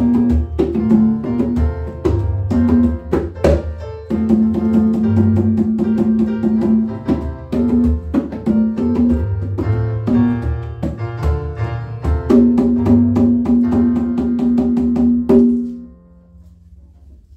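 A pair of conga drums played by hand, quick sharp strikes over held pitched notes. The playing stops suddenly about fifteen seconds in.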